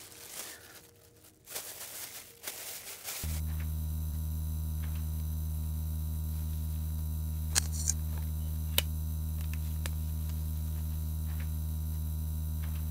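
Steady low electrical mains hum that cuts in abruptly about three seconds in and holds at an even level, with a couple of faint clicks.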